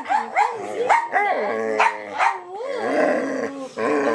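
Dog vocalizing for attention: a run of short yips and whines, then wavering calls that rise and fall in pitch, ending in a longer held call.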